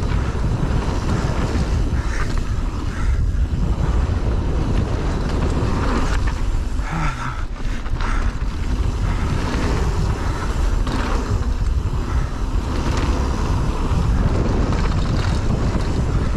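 Mountain bike descending a rough enduro trail at speed: steady wind rushing over the microphone with tyre noise on dirt, and irregular knocks and rattles as the bike runs over roots and rocks.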